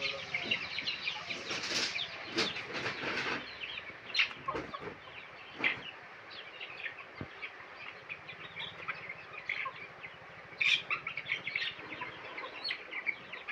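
A flock of month-old sonali chickens cheeping in a busy chatter of short high calls as they crowd to be fed, with some clucking and a few sudden short bursts of wing flapping.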